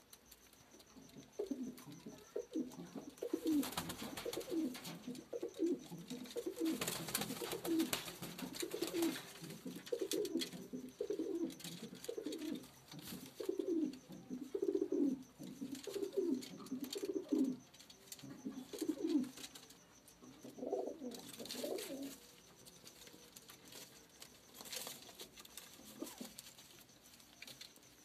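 Domestic pigeons cooing in a loft: a long run of low, repeated coos that thins out to a few scattered calls in the last few seconds, with occasional clicks and rustles.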